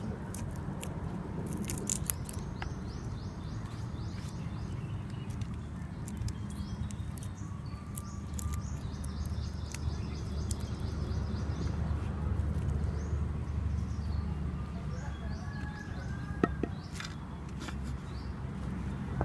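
Outdoor ambience: birds chirping in runs of short repeated high notes over a steady low rumble, with faint crackles and ticks of papery garlic skins being peeled by hand and two sharp clicks, one about two seconds in and one near the end.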